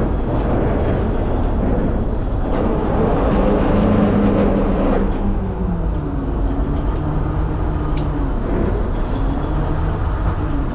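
Fishing boat's engine running as a steady low rumble, its note shifting a few times in the middle.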